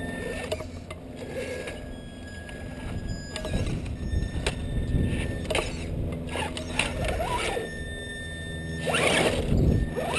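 Axial Wraith RC rock crawler's 27-turn brushed electric motor and gear drivetrain whining in short spurts as it crawls over rock, with clicks and knocks of the tires and chassis on the stone. A louder rushing noise comes in near the end.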